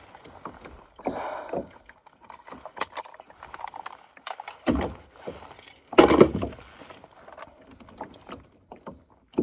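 Light metal clinks and handling rattles from a hanging fish scale being readied, with two louder bumps about four and a half and six seconds in.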